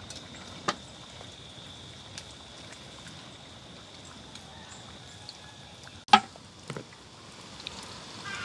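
Dumplings frying in hot oil over a coal fire: a steady sizzle, broken by a few sharp clicks and knocks, the loudest about six seconds in.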